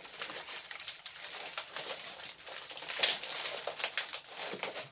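Packaging rustling and crinkling in irregular crackles as a parcel is unwrapped by hand, loudest about three seconds in.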